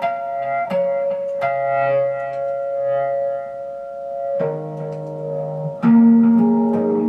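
Ambient guitar music played through heavy delay, reverb and a phaser: plucked notes that ring on and overlap, with a new chord struck about four and a half seconds in and a louder low note about a second later.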